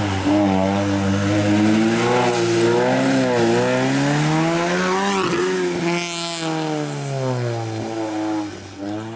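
Classic rally car's engine revving hard as it climbs through a hairpin and passes close by, its pitch rising and falling repeatedly with throttle and gear changes. The sound cuts off abruptly at the end.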